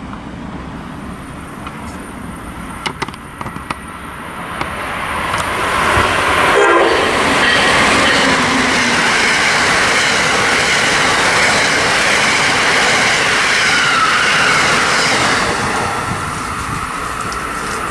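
An Amtrak Siemens ACS-64 electric locomotive and its passenger cars pass through a station at speed, with wheels rushing and clattering on the rails. The sound builds over a few seconds as the train nears, stays loud while the cars go by, then eases off near the end.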